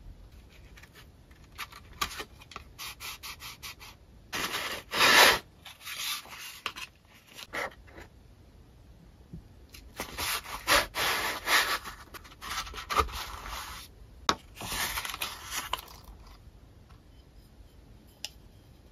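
Wood-mounted rubber stamps handled in their cardboard box: a quick run of light clicks, then several stretches of rubbing and scraping as the wooden blocks slide against the cardboard, the loudest about five seconds in.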